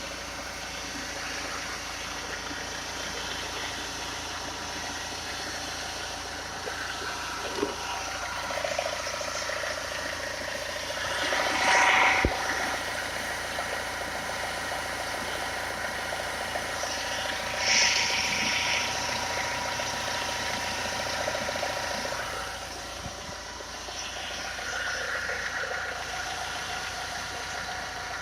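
PSA 2.0 HDi four-cylinder turbodiesel running steadily at idle, with an engine noise being shown. It grows briefly louder twice, about 12 and 18 seconds in.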